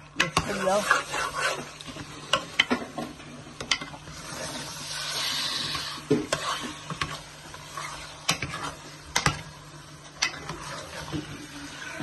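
Chicken breast pieces frying in masala while a spoon stirs and scrapes them round the pan, clacking against the metal many times. A stretch of louder sizzling comes about four seconds in.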